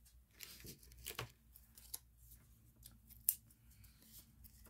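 Faint paper rustling and small clicks of hands handling papercraft pieces and peeling adhesive backing, with one sharper click about three seconds in.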